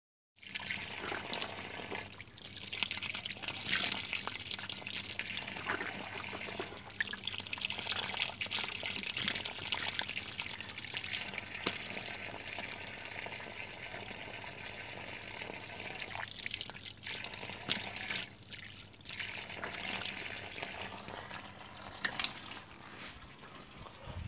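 Running water trickling and splashing steadily, with scattered clicks and knocks over it and a faint low hum underneath.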